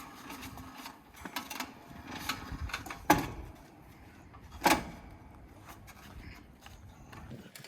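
Scattered knocks and clunks, with two sharp bangs about three and four and a half seconds in, as an Assault air bike is heaved against and into the back of a van.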